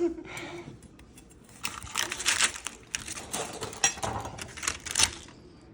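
Irregular clicks, clatter and scrapes of objects being handled. They start about a second and a half in and stop about five seconds in.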